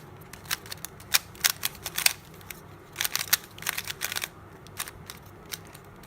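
Plastic clicks and clacks of a GAN Rubik's Speedcube being turned quickly during a solve, in irregular flurries of several turns a second. The cube is new and not yet lubricated, and feels bumpy to turn.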